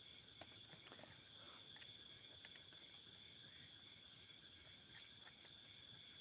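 Faint, steady chorus of night insects in the forest, several high trilling pitches pulsing evenly, with a few soft clicks.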